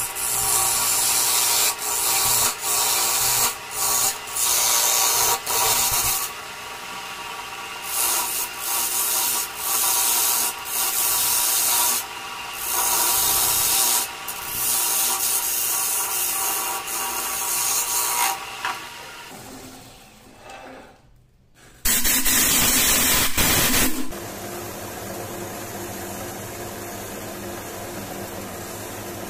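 Wood lathe running while a hand chisel scrapes out the inside of a spinning segmented wooden vase, cutting in repeated loud scraping bursts with steady machine noise underneath. The sound fades away about twenty seconds in, then after a short loud burst the lathe runs on more quietly as sandpaper is rubbed against the inside of the turning piece.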